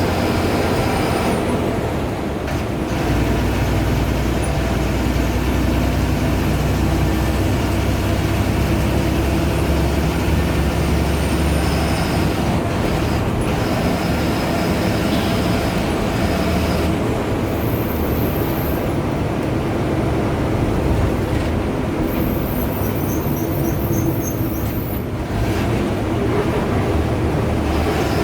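Ashok Leyland bus diesel engine running steadily under way, a continuous low drone with road and body noise.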